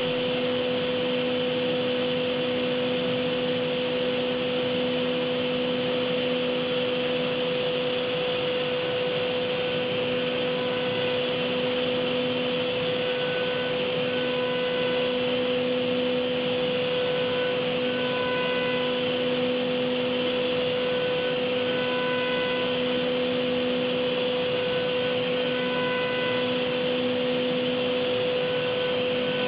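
CNC machine milling a graphite electrode: a steady machine hum with a strong constant tone over a noisy hiss. Fainter higher tones come and go every second or two.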